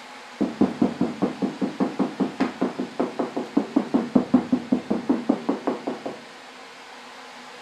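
Rapid knocking on the 1966 Mustang's Bondo-filled body lip, about five knocks a second for some six seconds, then stopping abruptly.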